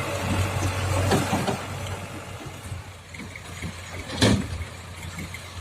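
Diesel engine of a JCB backhoe loader running steadily, with a few knocks about a second in and one loud sharp knock about four seconds in.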